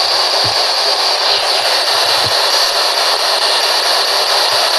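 P-SB11 spirit box putting out a steady, loud hiss of white noise and radio static, with a few faint, brief low blips.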